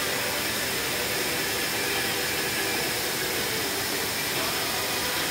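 Steady rushing hiss of a broad curtain waterfall, water spilling over a concrete check-dam wall into a shallow pool.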